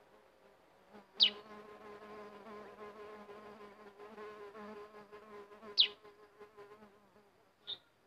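A flying insect buzzing close by for about six seconds, with a slightly wavering pitch. Two sharp, high bird chirps that drop in pitch cut in about a second in and near six seconds, and a fainter chirp comes near the end.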